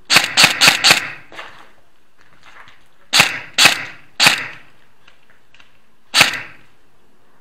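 Airsoft gun shots: four sharp cracks in quick succession, a pause, three more, then a single shot near the end, each followed by a brief echo.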